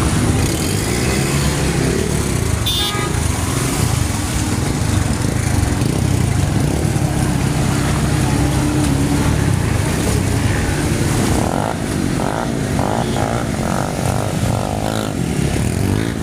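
Motorcycle and car traffic on a rain-soaked street: engines running close by over a steady hiss of heavy rain. There is a brief high-pitched sound about three seconds in and a quick series of short tones near the end.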